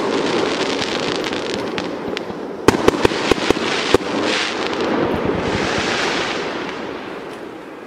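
Aerial fireworks bursting: a quick run of sharp bangs and crackles about three seconds in over a continuing rumble, then a hissing, sparkling burst a couple of seconds later that dies away toward the end.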